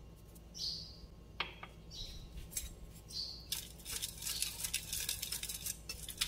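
A fork stirring seasoned flour on a ceramic plate, scraping and ticking against the plate. A few separate strokes at first, then quick, continuous stirring from about three and a half seconds in.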